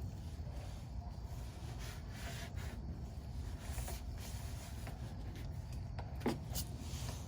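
Faint rubbing and handling noises with a single sharp knock about six seconds in, over a steady low rumble.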